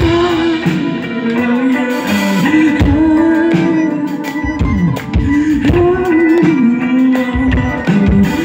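Live band playing an instrumental break, with guitar to the fore over bass and drums and a held melody line.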